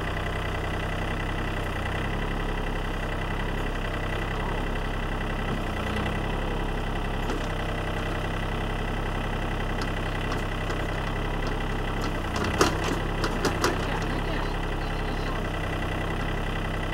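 John Deere compact tractor's engine running steadily while its backhoe digs soil. About twelve and a half seconds in come a few sharp knocks in quick succession.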